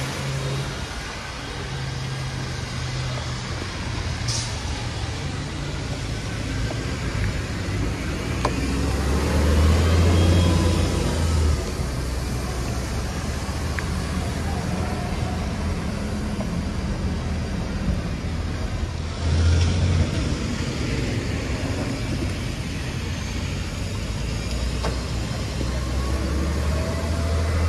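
City traffic on a rain-soaked street: buses and cars drive past with a low engine drone over a steady hiss of tyres on wet pavement. The drone swells three times as heavy vehicles go by: about ten seconds in, near twenty seconds, and near the end.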